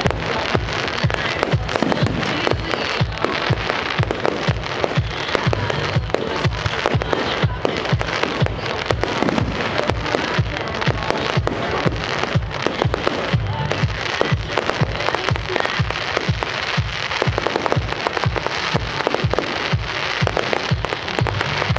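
Fireworks going off in a rapid, continuous barrage: several bangs a second with crackling, over music.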